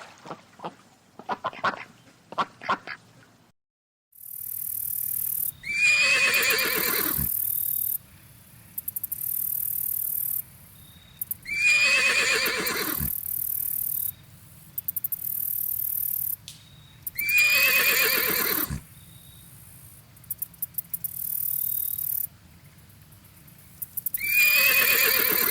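A horse whinnying four times, about six seconds apart, each call sliding down in pitch over about a second and a half.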